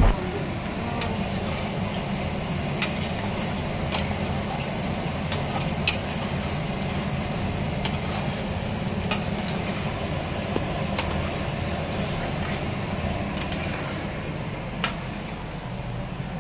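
Light sharp clinks of utensils against a cooking pot, scattered every second or two, over a steady low mechanical hum.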